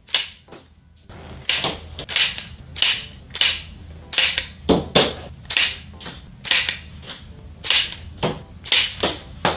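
About a dozen sharp cracks in quick succession, roughly two a second and unevenly spaced, each trailing off briefly.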